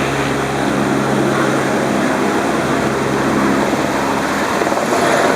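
Helicopter running close by: a loud, steady rush of rotor and engine noise. Its low hum drops away at the start, leaving mostly a rushing sound.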